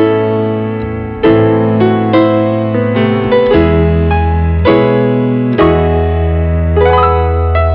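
Background piano music: sustained chords over held bass notes, a new chord struck about every second.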